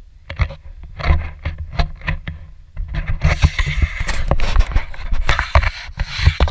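Knocks, clicks and scrapes of an action camera being handled and swung around, over a low wind rumble on the microphone. About three seconds in, a steady rush of noise sets in and lasts about three seconds, with more knocks in it.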